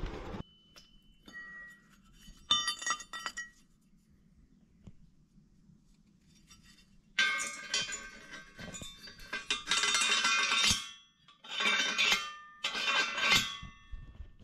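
Welded steel tube frame clinking and ringing as it is handled, in a short burst about two and a half seconds in and then a run of clanks through the second half.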